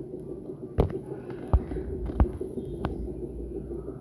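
Steady low background hum with four soft knocks, the first about a second in and the rest roughly two-thirds of a second apart.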